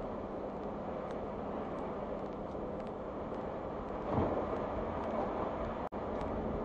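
Steady tyre and road noise of a car driving on a slushy, snow-covered highway, heard from inside the car, with a brief louder swell about four seconds in. The audio drops out for an instant near the end.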